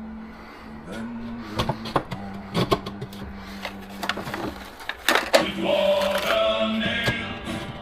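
A series of sharp knocks and clatter from work with wood and tools over a steady low hum, then, about five and a half seconds in, music with a male singing voice comes in.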